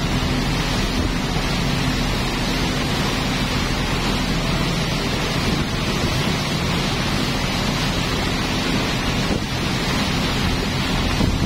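Chao Phraya express boat under way: its engine hums steadily beneath rushing water and wind buffeting the microphone.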